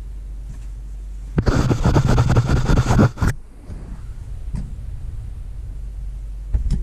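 Low steady rumble in a car cabin, broken about a second and a half in by roughly two seconds of loud rustling and rubbing handling noise that stops abruptly.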